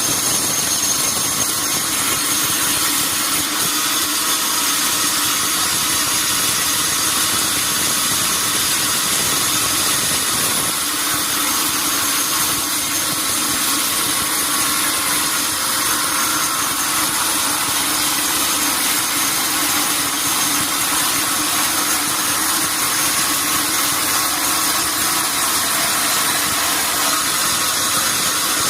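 Sawmill saw machinery running steadily, an even mechanical noise with a high whine over a hiss and no breaks or changes.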